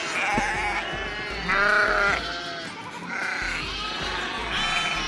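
A flock of Dorper sheep and goats bleating, about four separate calls, the loudest about a second and a half in.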